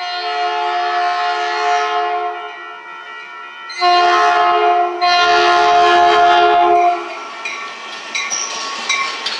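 Caltrain commuter train sounding its air horn on approach, a chord of several tones: a long blast, a shorter blast about four seconds in, then another long, louder blast. After that comes the clatter and rumble of the bilevel cars rolling past on the rails.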